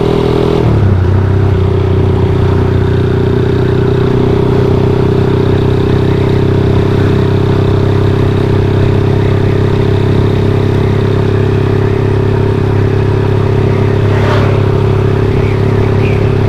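Motorcycle engine running steadily while being ridden, heard from on the bike. Its pitch settles slightly lower about a second in, and there is one brief knock near the end.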